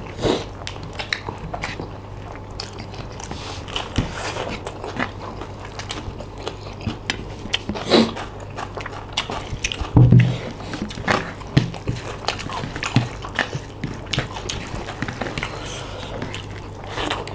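Close-up eating sounds of two people eating rice and mutton curry by hand: chewing and many short wet mouth clicks, with one louder low thud about ten seconds in.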